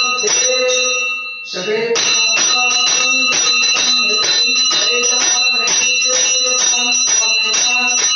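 Brass hand bell rung rapidly by a temple priest in worship, several strokes a second with the ring held between them. It breaks off briefly about a second in, then goes on ringing.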